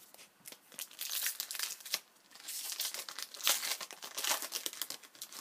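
Crinkling of a foil hockey-card pack wrapper as it is handled and torn open, in a run of short crackly bursts from about half a second in until near the end.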